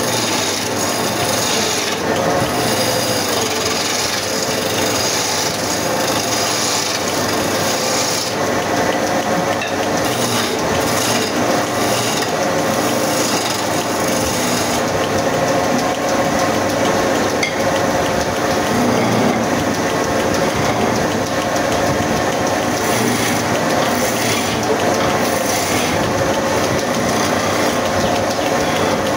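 A hand chisel cutting into a wooden spindle spinning on a belt-driven wood lathe, making a steady scraping hiss of shavings over the hum of the running lathe.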